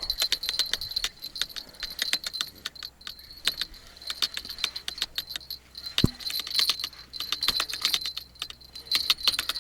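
Rapid, irregular metallic clicking and jingling from fishing tackle while a hooked roach is being reeled in, with a high thin ringing throughout. There is a single knock about six seconds in.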